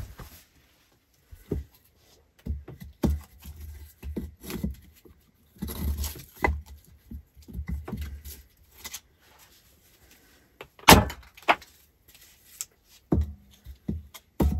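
Firewood knocking and thudding as logs are pushed into the firebox of a whitewashed brick stove: irregular wooden knocks with short pauses, and two sharp clacks about eleven seconds in.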